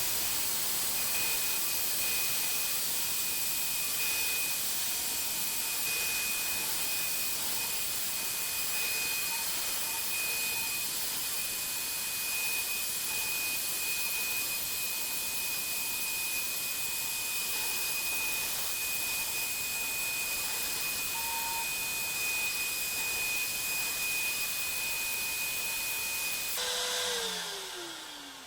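High-speed CNC router spindle running at 28,000 RPM while engraving aluminium-faced Dibond with a V-bit: a steady hiss with a high whine. About 26 seconds in, the hiss cuts off and the spindle winds down, its pitch falling steadily.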